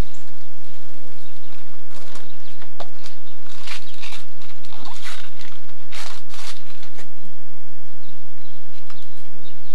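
Gift wrap and plastic bags rustling and crinkling several times at irregular moments as presents are unwrapped and handled.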